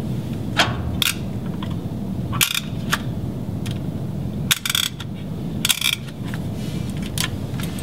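A push-type fiber-optic connector cleaner pressed into MPO adapter ports, giving a handful of sharp plastic clicks, some in quick pairs, as each port is cleaned. A steady low hum runs underneath.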